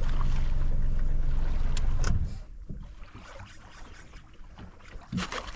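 A boat's outboard motor running with a steady low hum, which drops away about two seconds in, leaving a much quieter background.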